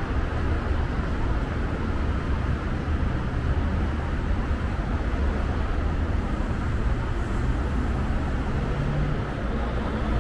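Steady city traffic noise: a continuous low rumble of road vehicles.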